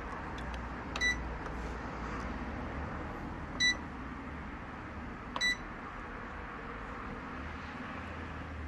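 Three short, high electronic beeps a couple of seconds apart from the Klarstein Brauheld electric mash kettle's control panel, over a steady low hum.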